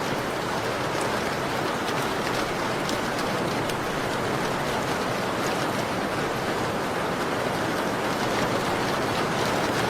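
Rain falling on a window pane: a steady, even hiss of rain with scattered faint sharp ticks.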